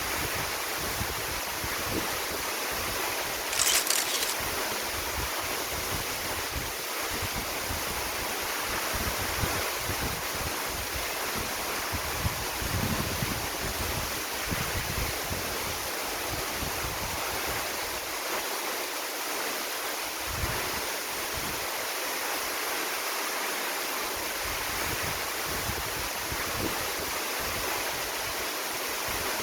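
Steady rushing of falling water from a waterfall and creek, with a short louder burst of noise about four seconds in.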